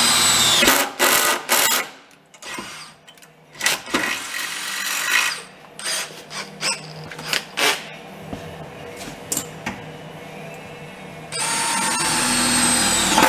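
Handheld power tool working on the car's sheet-metal body. A high whine near the start winds down and breaks into short bursts. Scattered knocks follow, then the tool runs again near the end and spins down.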